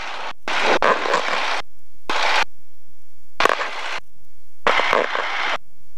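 Short bursts of garbled, noisy headset audio, radio or intercom cutting in and out abruptly about five times, with little between the bursts.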